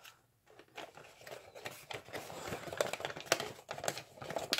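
Origami paper rustling and crackling as fingers pleat it with alternating mountain and valley folds, with a few sharper crackles in the second half.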